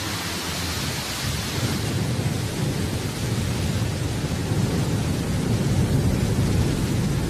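Blue Origin New Shepard rocket's BE-3 engine firing on the launch pad just after ignition: a steady, deep rumble of noise that grows a little louder toward the end as the engine builds thrust before liftoff.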